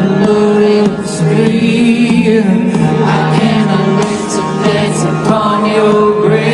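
Live rock band playing loudly, with sustained chords, cymbal strokes and a voice singing, the bass thin and the sound distant.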